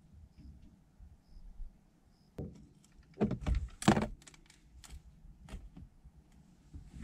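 Hands working at a vehicle's accelerator pedal: a cluster of sharp clicks and knocks from about two and a half to four and a half seconds in, loudest about four seconds in, with a few lighter knocks after.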